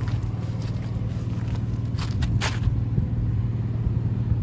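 Truck engine running with a steady low hum; a few short clicks or scrapes about two seconds in.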